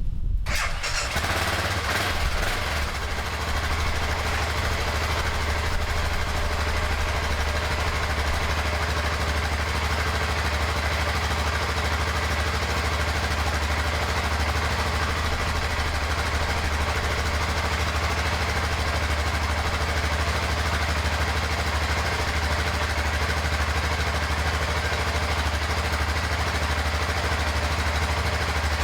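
BMW F650GS Dakar's single-cylinder four-stroke engine idling steadily, a little louder in the first few seconds.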